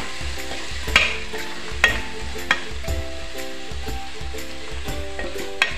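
Tomato-onion masala with spices frying and sizzling in oil in a nonstick kadai while a wooden spatula stirs it. A few sharp knocks of the spatula against the pan come about a second in, near two seconds, and just before the end.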